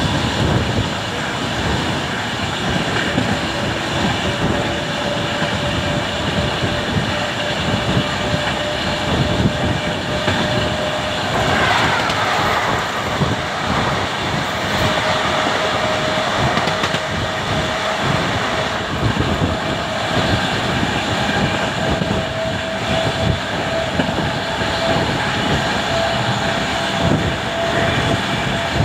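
Running noise of a moving passenger train's wheels on the rails, heard at the side of the coach, with a thin steady whine that slowly rises in pitch. About eleven seconds in, a louder rush of noise comes as a passenger train passes the other way on the adjacent track.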